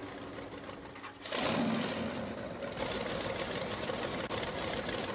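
Monster truck engine running, coming in suddenly about a second in and settling into a rapid, even clatter.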